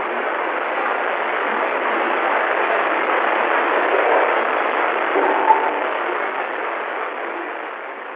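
Steady hissing static with a scratchy texture, the noise of an old phone's faulty microphone, with one short sharp blip about five and a half seconds in; it fades a little near the end.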